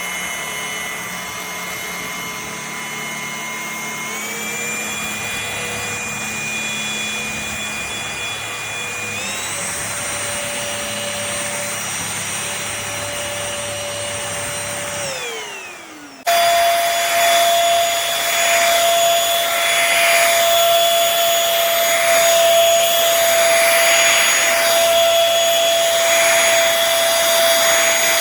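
Cordless stick vacuum cleaner motor running with a high whine that steps up in pitch twice, then winds down and stops about fifteen seconds in. A louder vacuum sound starts abruptly just after, with a steady whine and a rush of air that swells and fades.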